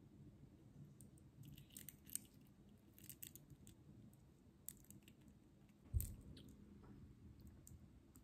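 Faint clicks and scrapes of a metal watch and its link bracelet being handled as the case back is pressed on by hand, with one dull thump about six seconds in.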